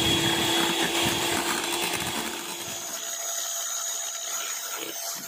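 Electric hand mixer running steadily at medium speed, its beaters whipping meringue (egg whites and sugar) from soft peak toward stiff peak. About halfway through the motor's hum drops and the sound becomes quieter and thinner.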